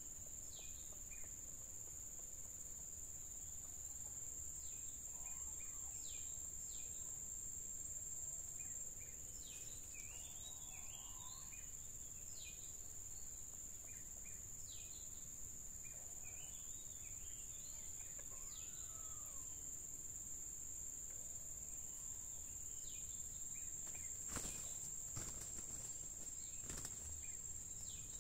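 Steady high-pitched insect drone, with short bird chirps scattered throughout. A few sharp knocks and rustles come near the end.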